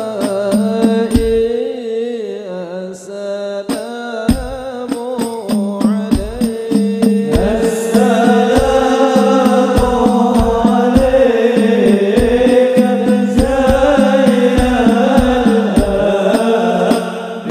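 Sholawat sung by a male voice over a steady beat of banjari frame drums, growing fuller and louder about eight seconds in.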